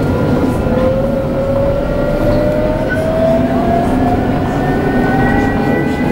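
Tram running on its rails with a steady low rumble and a traction-motor whine that rises steadily in pitch as the tram picks up speed.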